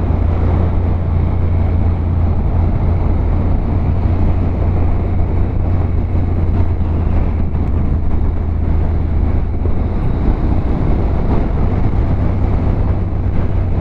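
Motorcycle engine running steadily at a constant cruising pace, a low even drone mixed with a rush of road and wind noise.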